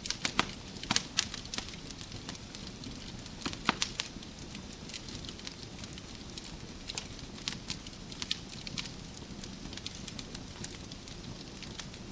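Wood fire crackling in a fireplace: a steady low hiss with scattered sharp pops, a quick cluster about a second in and another near four seconds in.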